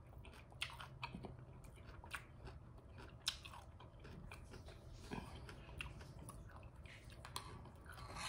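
Faint close-miked chewing of soft food, mashed potatoes and biscuit, with irregular wet mouth clicks and smacks.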